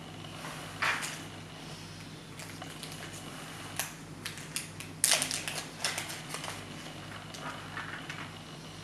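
Crinkling of a small plastic parts bag and clicking of a thin clear plastic blister tray as small model parts are handled. There are a few sharp crackles about a second in and near four seconds, and a denser cluster around five to six seconds, over a faint steady low hum.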